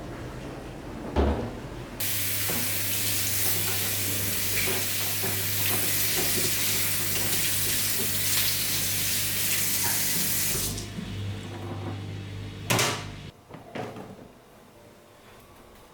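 Tap turned on, water running steadily into a sink for about nine seconds, then shut off suddenly. A knock comes just before it, and two sharp knocks follow near the end.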